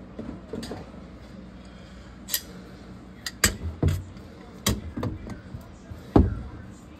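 Hard objects knocking and clattering as they are handled and set down: about seven separate knocks, the loudest near the middle and a deeper thud near the end.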